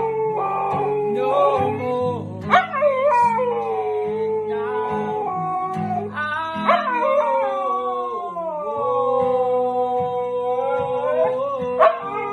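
Husky howling along to an acoustic guitar, with long drawn-out howls that slide in pitch, one held for several seconds in the second half, while a man sings and strums a Taylor acoustic guitar.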